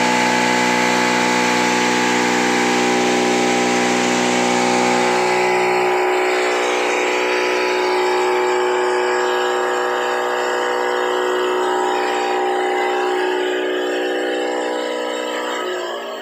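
A 10 HP herb grinding machine runs at full speed with a loud, steady whine of several tones over a hiss while dried roots are fed into its hopper. About six seconds in, its lowest hum drops away and the hiss thins, and the sound starts to fade near the end.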